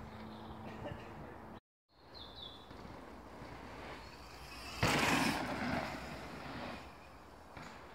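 Mountain bike tyres rolling and crunching over a dirt trail, with a loud rush of noise starting suddenly about five seconds in and fading over the next second. A bird chirps briefly about two seconds in.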